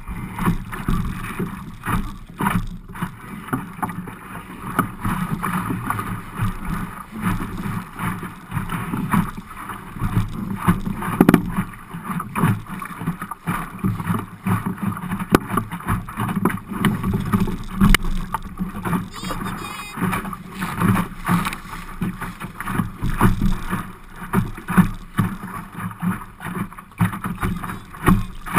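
Small Optimist sailing dinghy underway in choppy water: water slapping and splashing against the hull, with frequent irregular knocks and wind noise.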